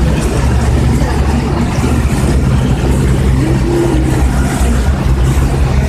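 A vehicle's engine running with a steady low drone, heard from inside the cabin as it drives through floodwater, with a constant hiss of water over it.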